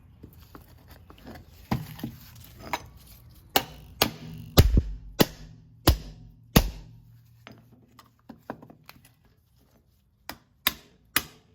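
A Krate Tactical OTF knife being struck hard in an abuse test: a series of sharp, separate knocks, heaviest in the middle, with a few lighter ones near the end.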